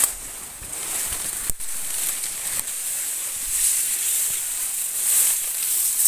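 Steady high-pitched insect buzzing that swells and fades in waves, over the rustle of leaves and grass being brushed through, with a sharp click about a second and a half in.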